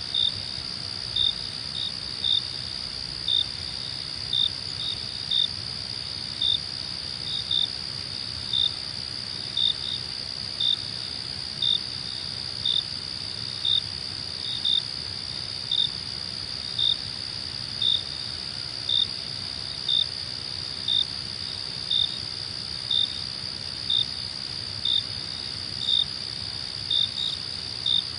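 Night-time crickets: a steady high trill with a louder, sharper chirp about once a second, sometimes two in quick succession.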